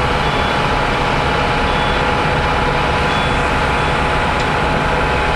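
Steady drone of a bus's engine and tyres on a wet highway, heard from inside the cabin at cruising speed, with a thin steady whine under it.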